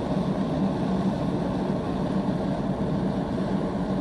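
A machine running steadily with an even low hum and a rushing noise.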